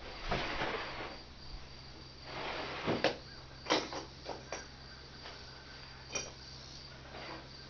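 Crickets chirping steadily, over a low hum, with two stretches of scraping and several sharp knocks, the loudest a few seconds in.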